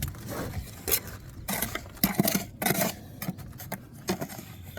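Irregular scrapes and sharp knocks, about half a dozen over a few seconds, from tools and materials being handled during bricklaying.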